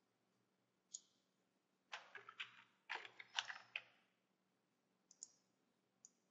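Faint computer keyboard keystrokes and clicks, entering shortcut commands. There is a single tap about a second in, two quick runs of taps around two and three seconds in, and a couple of lone clicks near the end.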